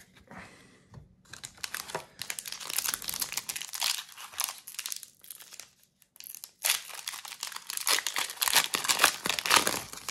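Foil wrapper of a Pokémon trading-card booster pack crinkling and being torn open, in two stretches of dense crackling with a short lull about halfway.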